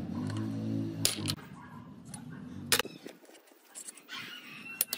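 Sharp metal clinks, three of them, as gears and shafts are fitted into a small engine's aluminium crankcase. A low steady hum fades out in the first second and a half.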